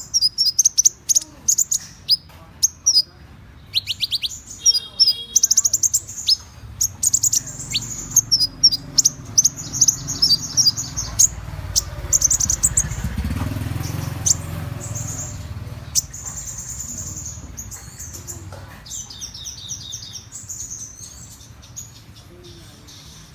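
Konin (kolibri ninja, a sunbird) singing a lure song: rapid high-pitched chirps and trills in quick bursts. A low rumble swells up and fades in the middle.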